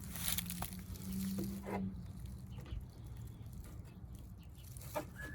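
Faint scraping and light taps of a plastic-welding iron working filler into a cracked plastic air intake, with a low steady hum for about the first two seconds.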